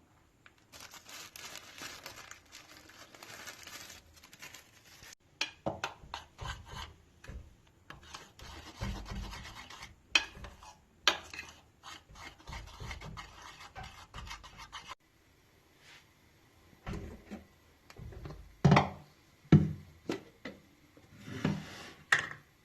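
Rubbing and scraping for much of the time, with a run of clicks, then several separate louder knocks near the end.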